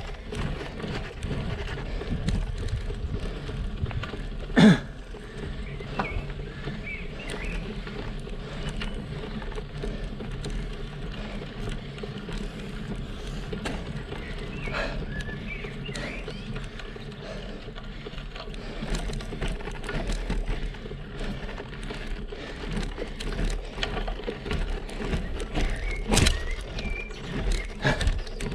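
Road bike climbing on rough, cracked asphalt: a steady tyre rumble with frequent small rattles and clicks from the bike. A loud short knock with a brief falling tone comes about five seconds in, and another sharp click near the end.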